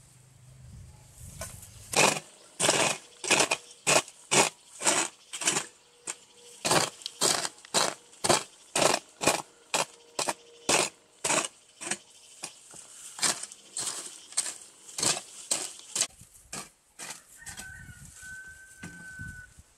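Rhythmic strokes of a hand tool, about two a second and steady in pace, stopping about sixteen seconds in. A steady high whistle-like tone follows near the end.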